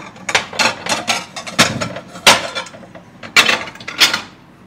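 Plates and dishes clinking and knocking against each other as they are taken out and handled: a quick string of sharp clatters, the loudest about two seconds in, then a few more near the end.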